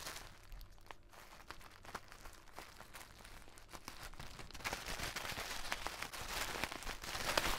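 Scissors cutting into a parcel, then packaging crinkling and rustling as it is torn open and unpacked, growing louder in the second half.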